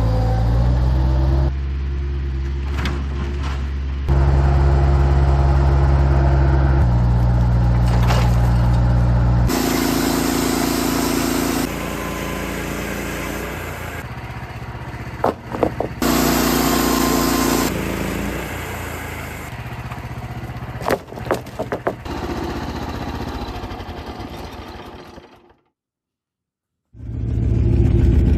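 Engines and machinery running across a series of abrupt cuts, the pitch and mix changing every couple of seconds, with a few sharp knocks. The sound drops out for a moment near the end and an engine comes back in loud.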